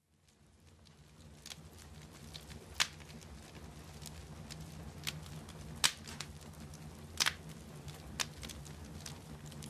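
Wood fire of stacked logs crackling: a steady low rumble with sharp pops at irregular intervals, the loudest about three and six seconds in. It fades in at the start.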